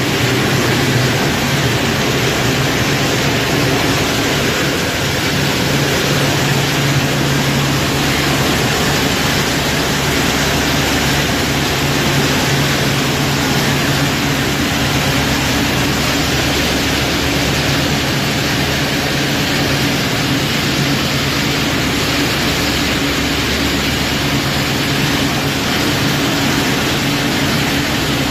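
Herbold plastics agglomeration and granulating line running: a loud, steady machine hum with an even rushing hiss, as plastic granules pour from a chute into a big bag.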